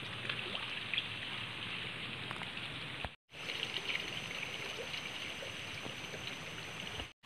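Water trickling steadily into a fish pond, with faint light drips. It breaks off briefly about three seconds in.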